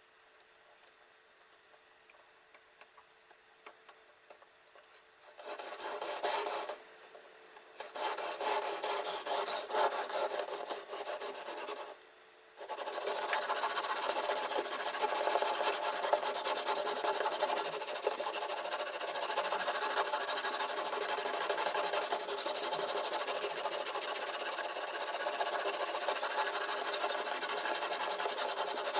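Abrasive on the guide rod of a fixed-angle knife sharpener scraping back and forth along a steel knife blade in quick rasping strokes. A few light clicks come first; the scraping then starts in two short runs with brief pauses between them, and goes on without a break through the second half.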